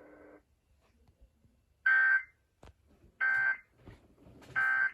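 NOAA Weather Radio sending its SAME end-of-message code after the weekly test: three short digital data bursts, each about a third of a second, about 1.3 s apart. The radio's steady background noise stops just before the bursts.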